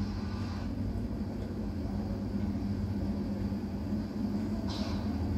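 Steady low hum and background noise from a television speaker, with a short hiss about three-quarters of a second before the end.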